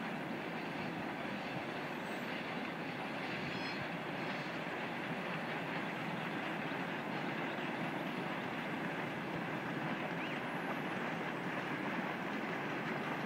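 Long freight train running along the valley floor far below, heard as a steady distant rattle and clatter of its wheels and wagons.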